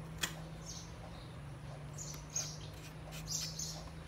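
Faint short high-pitched chirps scattered over a steady low hum, with a single click about a quarter second in.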